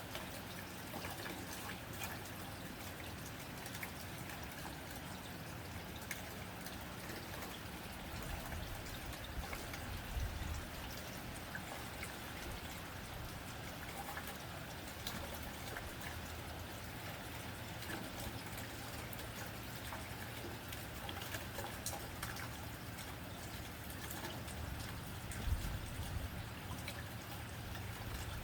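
Steady rain falling on a tin roof: a dense, even patter with many individual drops ticking on the metal.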